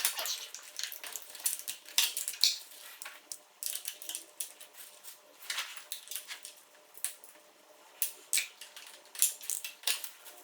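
End-cap oil filter wrench on a socket wrench, worked against a stuck motorcycle oil filter: irregular metallic clicks, knocks and scrapes as the oversized cap slips and grips.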